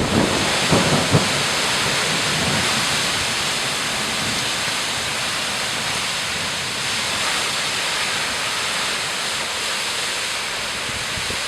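Heavy rain pouring down in a severe thunderstorm, a dense steady hiss, with wind buffeting the microphone in gusts during the first second or so.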